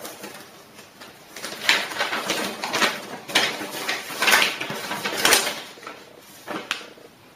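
A folded paper instruction manual being unfolded and handled: crisp rustles and crackles of paper, about half a dozen sharp swishes roughly a second apart after a quieter first second.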